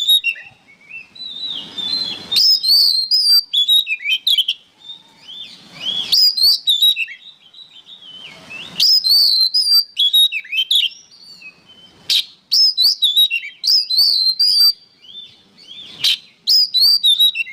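Oriental magpie-robin singing in full voice: loud phrases of varied, gliding whistles mixed with harsh chattering notes, a new phrase about every three seconds with short pauses between.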